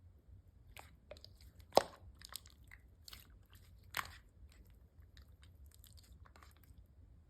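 Mixed slime being squished and pulled by hand, giving irregular sticky clicks and small crunchy pops, with two louder pops about two and four seconds in.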